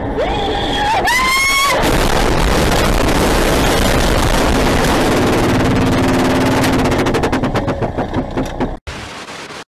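A car crash: a short high squeal rising in pitch, then several seconds of loud crashing and scraping noise as the car tumbles. The noise breaks into a run of rapid rattling knocks and then stops abruptly.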